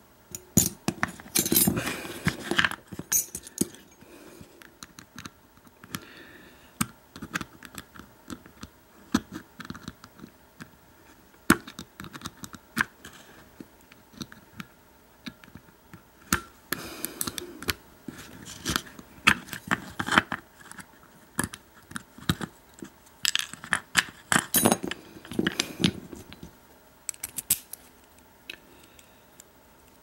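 Brass American 1100 padlock being handled and taken apart by hand: scattered small metal clicks, clinks and scrapes of the lock body, its key and small tools, coming in clusters several times.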